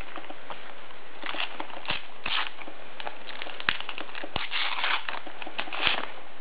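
Foil Panini sticker packet being torn open and crinkled by hand: crackling and small clicks in two spells, about a second in and again in the second half.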